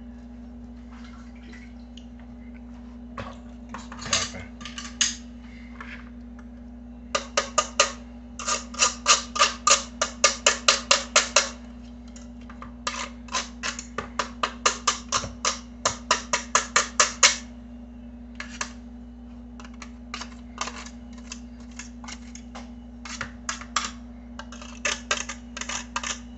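Potato being grated on a metal box grater held over a stainless steel bowl: quick rasping strokes, about four a second, in runs of several seconds with pauses and scattered single strokes between, over a steady low hum.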